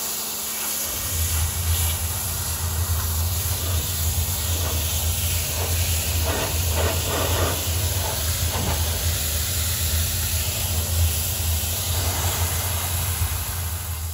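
DOFF steam-cleaning lance jetting hot, low-pressure steam against brickwork and paving: a loud, steady hiss, joined about a second in by a low steady drone.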